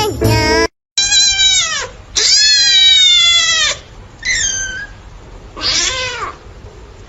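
A cat meowing loudly: two long, drawn-out meows falling in pitch, then two shorter meows. A brief snatch of jingly music cuts off just before the first meow.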